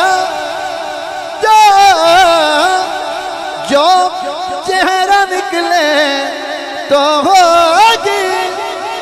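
A man singing a naat into a microphone, drawing out a syllable of the verse in long ornamented melismatic runs with wavering pitch.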